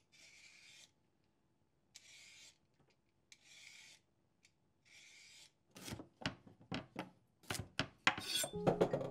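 Food preparation at a kitchen counter: four short rasping scrape strokes about a second and a half apart, then a quick, irregular run of knife chops knocking on a cutting board.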